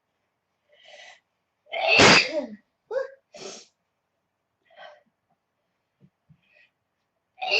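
A young woman's allergy sneezing fit: a faint breathy build-up, one loud sneeze about two seconds in, then a few short breathy sounds, and another sneeze starting right at the end.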